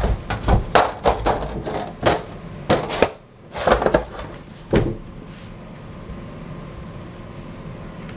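An aluminium baking tin and a flat aluminium tray knock and clatter as they are handled and the tin is turned over onto the tray to release a set pudding. There is a string of sharp knocks over the first five seconds, then only a steady low hum.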